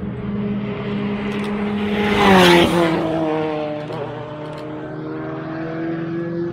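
A race car's engine approaching and passing at speed on the straight. It gets louder to a peak about two and a half seconds in, where the pitch drops as it goes by, then keeps running steadily as it moves away.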